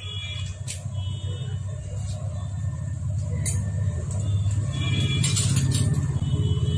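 A motor vehicle's engine running with a steady low rumble that grows a little louder, with a few light metallic clicks over it.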